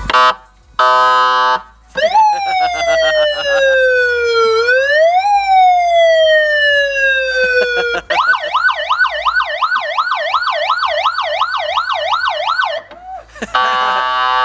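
Electronic police siren played through a Rockford Fosgate Punch 602 amplifier on its left channel only, cycling its tones: two short blasts of a buzzy horn tone, then a wail that climbs quickly and falls slowly, twice, then a rapid yelp of about three up-and-down sweeps a second, and the horn tone again near the end. It is loud, but judged not loud enough, so the amplifier is next to be bridged.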